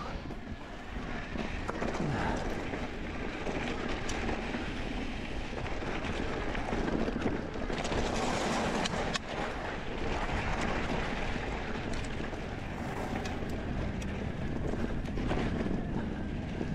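Riding noise from a mountain bike on a loose gravel and dirt track: a steady rush of wind over the microphone and tyres on the ground, with scattered clicks and rattles from stones and the bike.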